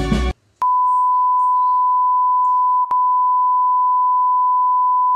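Background music cuts off abruptly near the start. After a short gap, a loud, steady electronic beep on one unchanging pitch sounds, with a split-second break about two seconds later.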